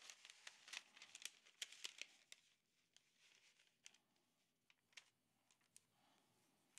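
Faint crinkling of parchment paper being folded over and pressed flat by hand, busiest in the first two seconds, then a few isolated soft ticks.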